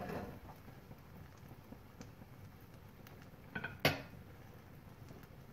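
Frying pan and spatula knocking on the gas stove: a faint click about two seconds in, then two light clicks and a sharp clatter about four seconds in.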